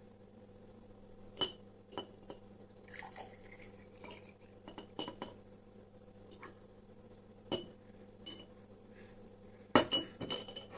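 A glass and a small tea strainer clinking and knocking against each other in scattered single clinks, with a quick cluster of knocks near the end.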